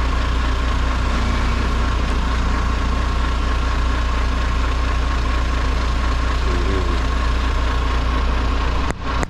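Diesel engine of a FAW JH6 tractor truck idling steadily, a low, even hum.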